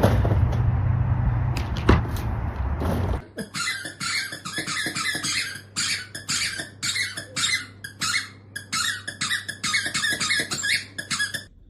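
A long run of short, high-pitched squeaks, about two or three a second, starting a few seconds in and stopping shortly before the end.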